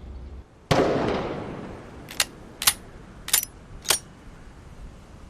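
A single gunshot about a second in, its echo dying away slowly, followed by four sharp metallic clinks spaced about half a second apart.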